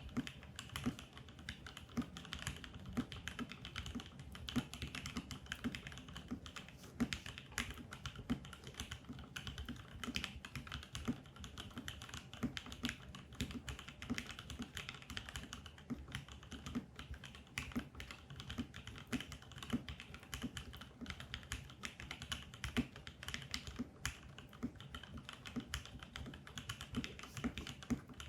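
Steady typing on a TKC Portico mechanical keyboard with lubed Gateron Yellow linear switches on an FR4 plate: a rapid, unbroken run of keystrokes.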